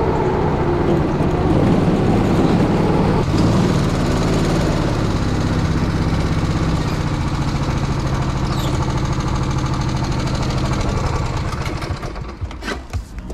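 Go-kart engine running, falling in pitch at first and then holding a steady low hum as the kart slows. Near the end it drops away, with a few sharp knocks.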